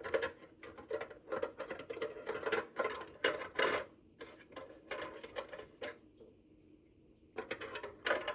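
Small hard plastic pieces clicking and rattling as sewing-machine accessories and their storage compartment are handled: a quick run of clicks for about six seconds, a short pause, then more clicking near the end.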